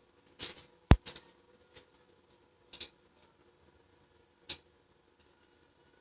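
A handful of separate sharp clicks and knocks, the loudest a single hard click about a second in, then a double knock near the middle and one more later.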